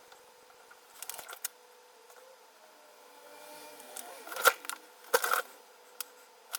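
Small clicks, taps and a faint scrape of hand tools and parts being handled on an opened laptop during a thermal-paste job. The clicks come singly and in quick clusters, with the loudest a little past halfway.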